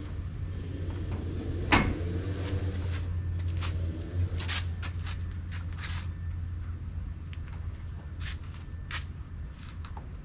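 A Toyota Tacoma's hood being lowered, with one sharp knock about two seconds in as it comes down, followed by a run of lighter clicks and taps of a hand on the plastic hood bug shield.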